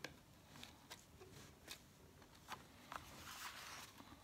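Faint handling of a cardstock pop-up card being folded: a few soft paper clicks and a light rustle of card.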